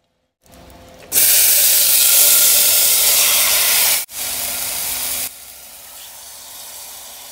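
Marinated chicken pieces sizzling loudly as they hit hot ghee in an aluminium pressure cooker. There is a brief break about four seconds in, and the sizzle drops to a quieter level about a second later.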